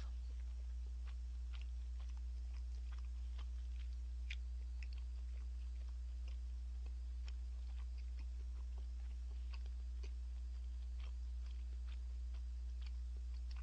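Chewing food close to the microphone: scattered small wet mouth clicks and smacks throughout. Under them runs a steady low electrical hum.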